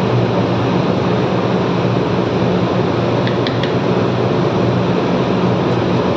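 Steady hum and rush of a kitchen exhaust fan, unchanging throughout, with a couple of faint clicks about halfway through.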